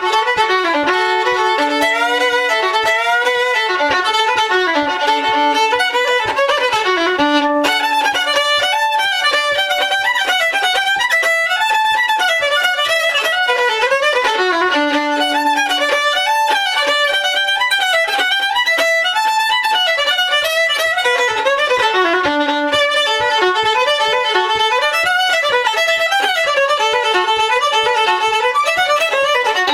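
Fiddle playing a fast reel in an unbroken run of quick notes, in the Irish-Newfoundland style.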